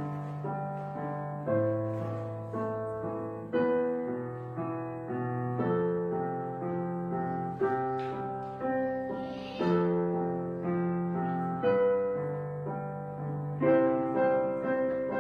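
Slow, gentle solo piano music: notes and chords struck about once a second and left to ring and fade.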